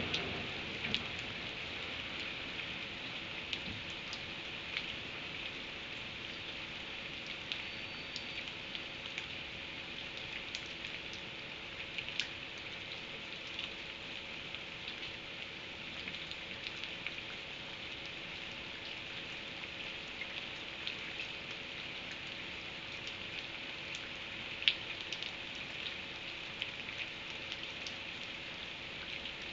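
Steady rain falling, with scattered drips ticking on a surface and one sharper tick about three-quarters of the way through. The tail of a thunder rumble dies away right at the start.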